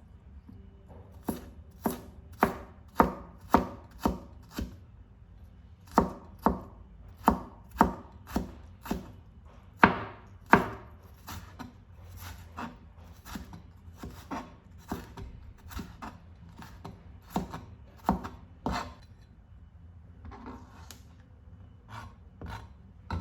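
Kitchen knife chopping food on a cutting board: sharp strokes at about two a second, in runs with short pauses, growing fainter near the end.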